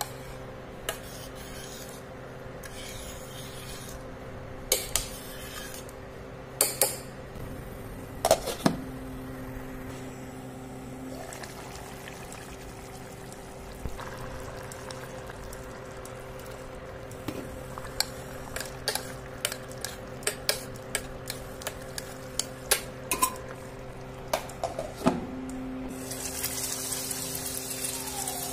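Metal ladle clinking and scraping against a stainless-steel pan while stirring a watery potato curry, in scattered strikes and then a quick run of them, over a steady hum. Near the end a sizzling hiss starts.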